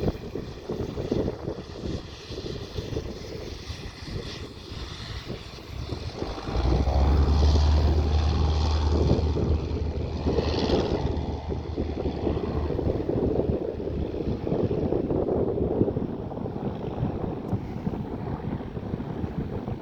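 Small propeller plane's engine heard during landing, mixed with strong wind buffeting the microphone. A deep rumble comes in suddenly about six seconds in and holds for about seven seconds.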